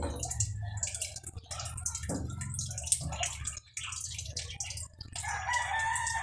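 Small clicks and rustling of fingers working nylon fishing line through a small metal fitting, over a steady low hum. Near the end a rooster starts to crow.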